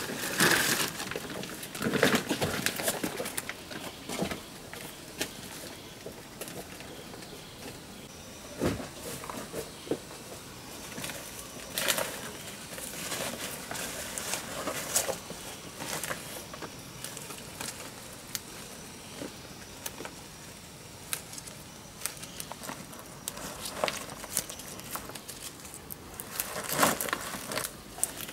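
Rubber boots stepping through forest undergrowth, crunching dry leaves and twigs and brushing through plants in irregular steps, louder in the first few seconds and again near the end.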